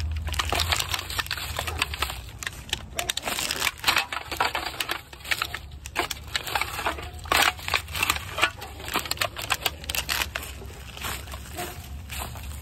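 Plastic wrappers, dry leaves and crushed aluminum cans crinkling and crackling as a rubber-gloved hand rummages through a litter pile. The sound is a dense, irregular run of crunches and rustles.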